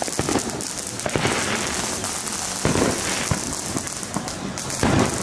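Neighbourhood fireworks going off all around: a dense, continuous crackle of many rapid pops, with two heavier booms, about halfway through and near the end.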